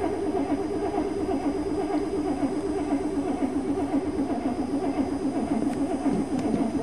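An older car's engine being cranked by its starter motor, a continuous fast pulsing churn that never catches and fires: the engine won't start.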